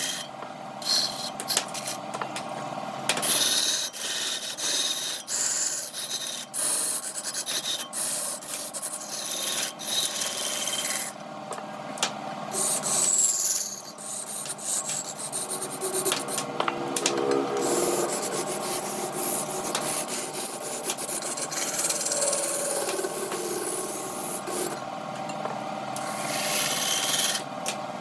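Wood being turned on a lathe: a hand tool scraping and shaving the spinning wood, with an irregular, scratchy rasp full of small clicks.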